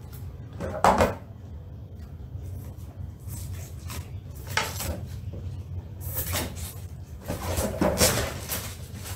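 Clear plastic wrapping on a boxed model crinkling and rustling as hands handle and pull at it, with one sharp knock about a second in. The crinkling turns dense and continuous over the last three seconds.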